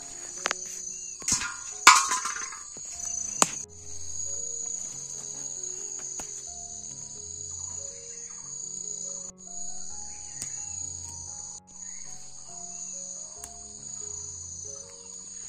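Insects buzzing in a steady high-pitched drone that drops out briefly a couple of times, over soft background music. In the first few seconds there are rustles and a few sharp knocks from plants being handled.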